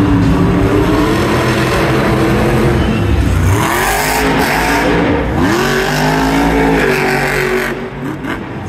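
Monster truck's supercharged engine revving hard as the truck accelerates across the arena dirt, its pitch climbing and falling several times in the second half, then easing off near the end as the truck leaves the ramp.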